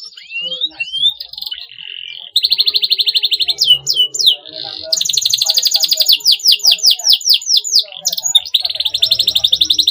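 Domestic canary singing: a few rising whistled notes, then, from about two seconds in, long, very fast high trills broken by quick sweeping notes that fall and rise.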